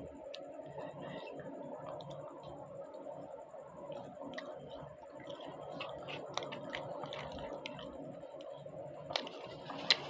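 Someone eating luchi and cholar dal: soft chewing and small wet clicks, over a steady background hum. A sharper click comes near the end.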